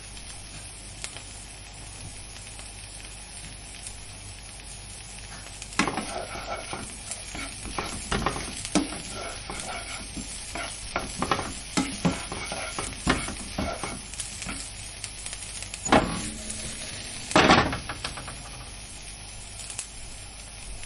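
Vegetables sizzling in a frying pan with a steady hiss. From about six seconds in, they are stirred, with a run of scrapes and knocks of a utensil against the pan, loudest near the end of the stirring, before the sizzle carries on alone.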